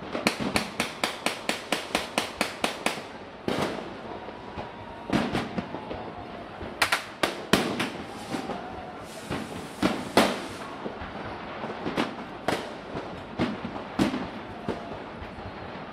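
Fireworks exploding: a rapid string of bangs, about five a second, for the first three seconds, then scattered single bangs of varying loudness.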